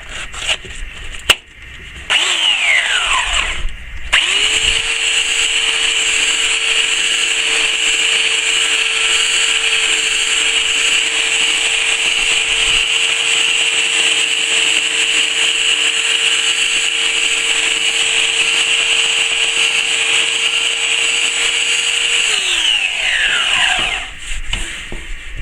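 Black & Decker KA86 electric belt sander with an 80-grit belt, sanding a scaffold board. A sharp click comes just before it starts. It runs briefly, cuts out, then restarts and runs steadily with an even whine. Near the end it is switched off and winds down.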